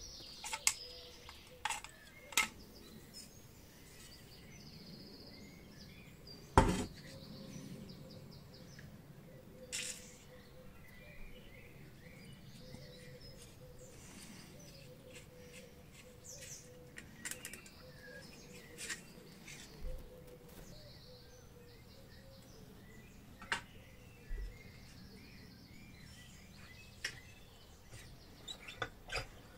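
Sparse metallic clicks and clinks of pliers and a screwdriver on an old camping stove's burner parts, with one louder knock about six and a half seconds in. Birds chirp faintly in the background.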